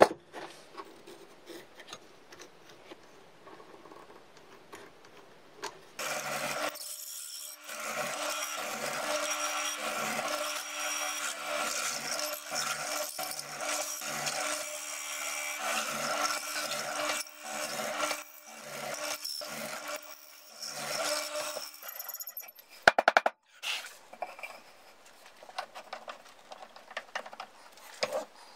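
Hollow-chisel mortiser running and plunging its chisel and auger into a wooden beam again and again, about once a second, chopping out a square mortise. Before that there are some quiet seconds of handling. After the cutting stops there is a short, sharp, loud clatter, then a few quieter knocks.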